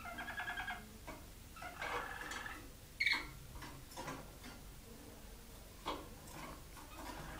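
Waterslager Malinois canaries singing in short rolling phrases, one near the start and another about two seconds in, with a single sharp note about three seconds in. Between the phrases come scattered ticks and taps from the birds moving about the cage.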